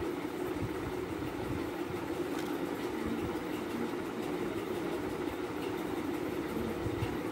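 A steady low hum with a rumble beneath it, even throughout.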